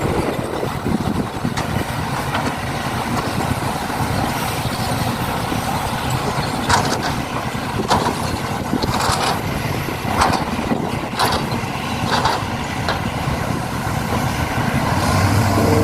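Truck engine running steadily, with a series of short, sharp hissing or clicking bursts about once a second from roughly halfway through.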